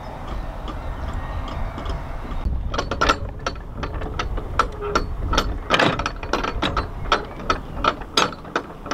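Canal lock paddle gear being wound with a windlass, its ratchet pawl clicking over the gear teeth in a run of sharp clicks, about two or three a second, starting about three seconds in.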